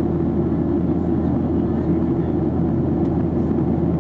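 Steady cabin noise of a Boeing 737-800 in flight: the low rumble of its CFM56 jet engines and rushing air, heard from inside the passenger cabin.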